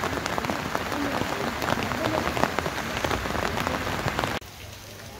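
Steady rain falling, with many sharp, close drop hits on hard surfaces. About four seconds in it cuts off abruptly to a quieter, even background.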